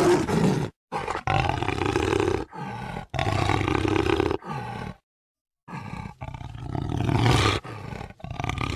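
Jaguar roaring over and over: hoarse calls about a second long, with quieter, shorter ones between them. The calls are cut off twice by sudden dead silences, near the start and about five seconds in.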